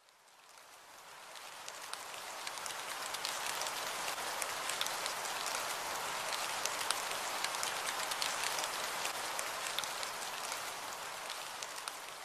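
Steady rain pattering, a dense hiss dotted with sharp drop clicks. It fades in from silence over the first couple of seconds and tapers off near the end.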